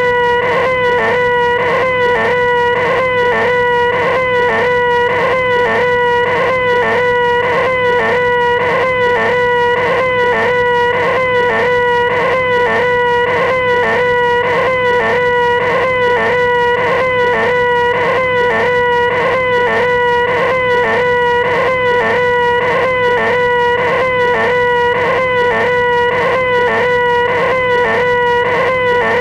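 A man's high, nasal screech held on one unchanging pitch, repeated over and over without a pause, with a small regular hitch about twice a second.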